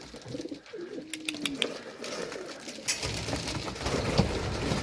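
Racing pigeons cooing, low gliding calls, with a few sharp clicks about a second in and a denser rustling noise from about three seconds.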